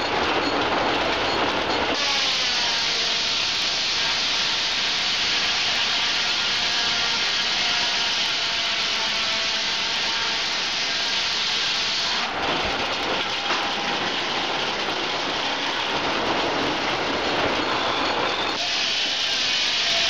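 Old circular sawmill running: the spinning saw blades and the log carriage travelling on its rails as a squared log is fed through. The sound shifts sharply about two seconds in and again past the middle, as the cut starts and stops.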